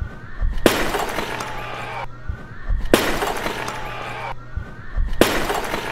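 Clay jar hurled onto a stage floor and shattering, each sharp crash followed by shards scattering and clattering. The smash comes three times, about every two and a quarter seconds.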